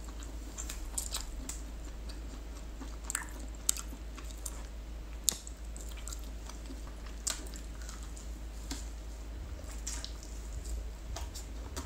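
A person chewing and biting roast turkey leg meat torn off the bone, with scattered sharp mouth clicks and smacks.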